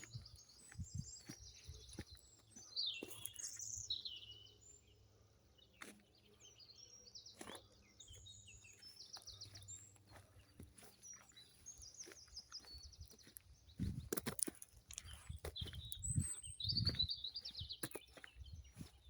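Several small birds singing and chirping in short trilled phrases. Soft low thumps come and go underneath, heaviest about two-thirds of the way in and again near the end.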